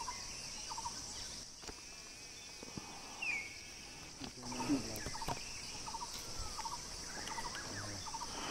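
Forest ambience: a steady, high insect drone, with short chirping bird calls repeating through it and a descending whistle about three seconds in.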